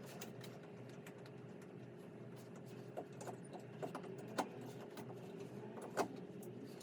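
Scattered light clicks and taps, with a few sharper knocks about three, four and a half and six seconds in, over a steady low hum.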